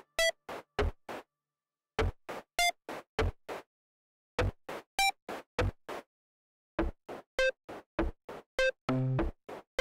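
Electronic sound design: short, sharp synth clicks and blips in quick rhythmic groups, some with a pitched beep, broken by silent gaps of about a second. About nine seconds in a longer held synth tone with a low hum comes in among the hits.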